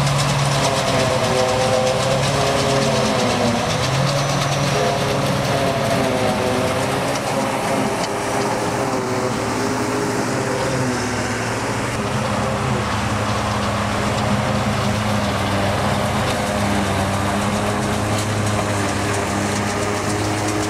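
Diesel engines of a self-propelled forage harvester and a T-150 tractor with trailer running steadily while the harvester chops grass for haylage. It is a continuous heavy engine sound whose tones waver slightly in pitch.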